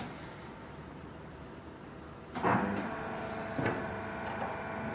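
Hydraulic unit of a CNC butt fusion welding machine starting up and running with a steady multi-tone whine, with a few clunks as it works. A click comes right at the start.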